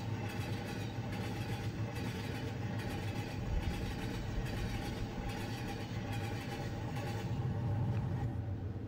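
Train sound effect: a steady rumble with a regular rhythmic clatter about once a second, like a train running along a track, fading out near the end.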